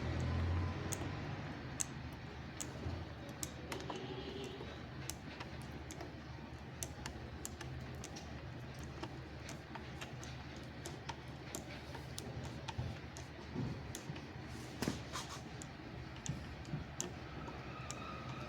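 Irregular light clicks and taps, a few a second, over a steady low hum.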